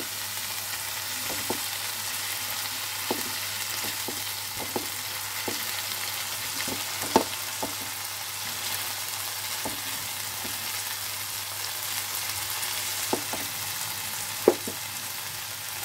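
Onion, ginger and garam masala paste sizzling in hot oil in a non-stick frying pan as it is fried down, a steady hiss stirred with a plastic spatula. Occasional sharp clicks; the loudest come about seven seconds in and again near the end.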